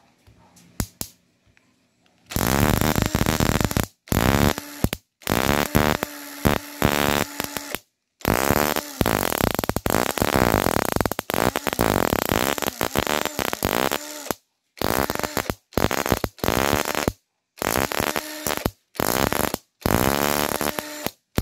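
High-voltage spark tester arcing in rapid buzzing trains of sparks as a Toyota 2E distributor is spun by hand to trigger its pickup coil. The bursts last one to several seconds, start and stop abruptly, and their pitch shifts with the spinning speed. The ignition coil is firing: the distributor and pickup coil are working.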